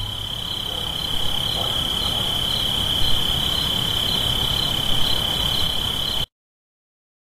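A steady high-pitched trill like night insects, over an even hiss; it cuts off suddenly about six seconds in.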